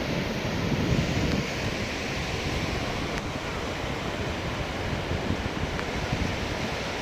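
Sea surf washing steadily onto a beach, with wind rumbling on the microphone.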